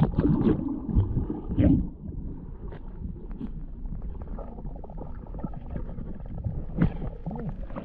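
Stream water splashing and gurgling, louder and busier for the first two seconds, then settling into a steady low wash with small scattered clicks.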